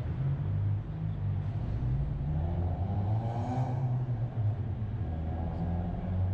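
A car driving, with a steady low rumble of engine and road noise. A higher engine note rises and falls near the middle.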